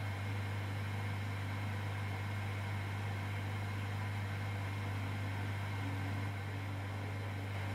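Porsche 718 Cayman GT4 Clubsport's 3.8-litre flat-six idling with the car standing still, heard from inside the cockpit as a steady low hum.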